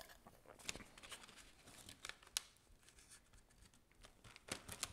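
Near silence with a few faint paper rustles and light taps as a wooden coaster and sheet of transfer paper are handled and pressed together.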